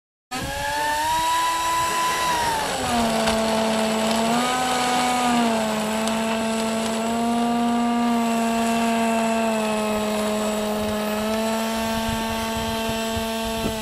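Model Airbus A320's electric motors whining as it taxis down the runway. The pitch drops about two and a half seconds in as the throttle comes back, wavers up briefly, then holds steady before cutting off abruptly.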